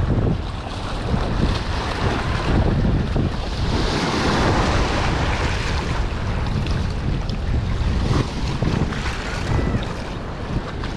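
Wind buffeting the microphone over a steady rush of water, with a gusty low rumble.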